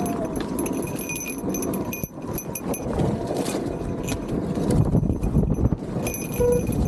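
Motorcycle riding along a sandy trail, its engine and tyre rumble steady, with a light metallic jingling that comes and goes.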